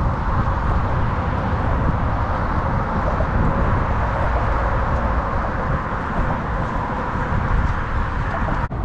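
Steady traffic noise from cars on a road bridge, an even rush with no clear single passes, briefly broken near the end.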